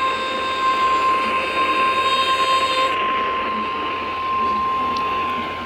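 NOAA Weather Radio 1050 Hz warning alarm tone: one steady high beep over radio static, the signal that a warning broadcast follows. A second, lower buzzing tone sounds with it and cuts off about three seconds in.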